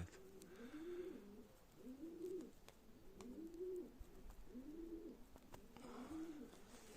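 Domestic pigeons cooing: a steady run of low coos, each one rising and falling, about one a second.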